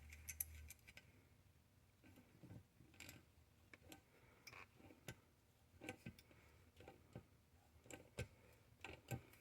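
Faint, irregular metal clicks as a mini pipe wrench works a slotted pipe nipple into a threaded plug hole in an intake manifold, chasing out dirty threads. About a dozen scattered clicks at uneven gaps.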